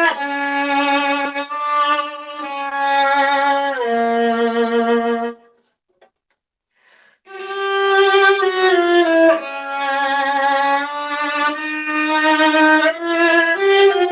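Solo viola playing slow, sustained bowed notes with vibrato. The playing stops a little past the middle for about two seconds, then resumes.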